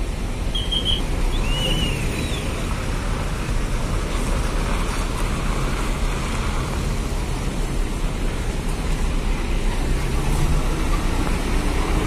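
Large diesel coach engine running at low speed as the bus manoeuvres and pulls out close by, a steady low rumble with road traffic behind it. Two short high-pitched squeaks come in the first two seconds.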